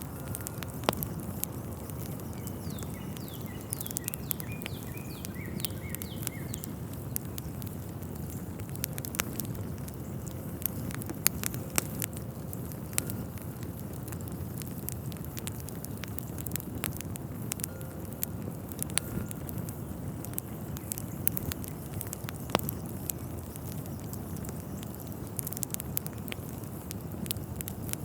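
Crackling fire: irregular sharp pops and snaps over a steady low rush, with a few faint bird chirps a few seconds in.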